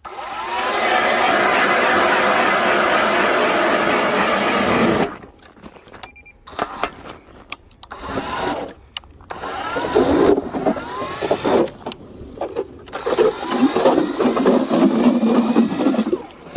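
Battery-powered StrikeMaster electric ice auger drilling through river ice: a loud, steady grinding of the motor and cutting blades for about five seconds, then shorter runs with pauses in between for the rest.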